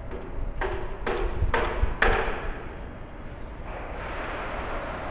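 Four quick metallic clinks about half a second apart, each ringing briefly: stainless-steel parts of a vacuum planetary mixer's stirring shaft knocking together as they are fitted by hand. A steady rushing noise sets in near the end.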